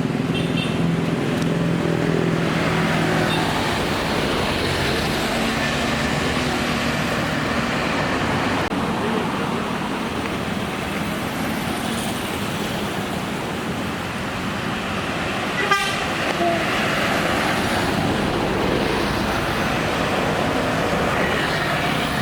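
Buses and other traffic running at a bus terminal, a steady din of engines and road noise. A horn holds a steady tone in the first few seconds, and there is one sharp knock a little past the middle.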